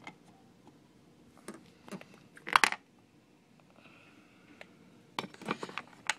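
Small plastic toy figures and dollhouse pieces being handled: scattered light clicks and rustles, with one louder rustle about two and a half seconds in and another cluster near the end.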